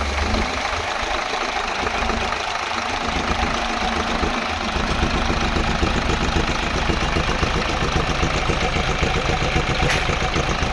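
Isuzu 6HK1 inline-six diesel engine idling steadily, with an even rhythm of firing pulses.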